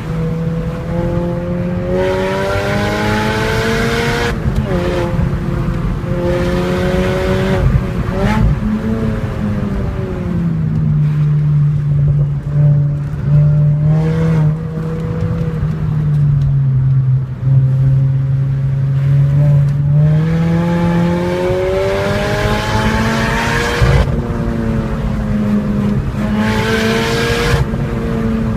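Mini Cooper S John Cooper Works GP engine accelerating hard through the gears, its pitch climbing and dropping sharply at each upshift. Midway it settles into a steadier, lower drone for several seconds before pulling through the gears again.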